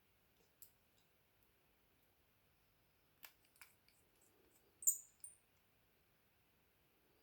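Faint, scattered clicks and taps of small tools and parts handled on a smartphone under repair. The loudest comes about five seconds in, with a short high squeak.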